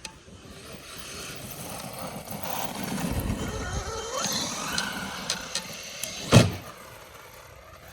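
Traxxas Maxx electric RC monster truck's brushless motor and drivetrain whining as it speeds up and runs, the pitch rising and falling with the throttle, then one loud thud about six seconds in as the truck lands a jump.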